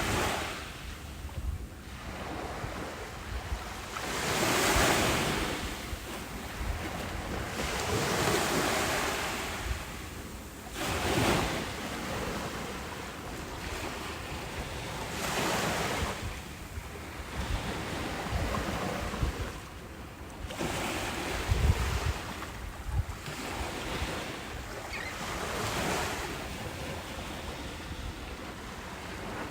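Ocean surf breaking and washing up a beach, the rush of water swelling and falling every few seconds, with low wind rumble on the microphone.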